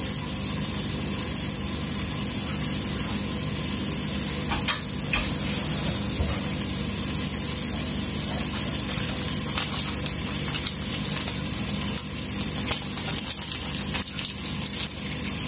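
Cauliflower, tomato, bell pepper and cheese sizzling steadily in a skillet under a glass lid, with scattered pops and crackles that come more often near the end.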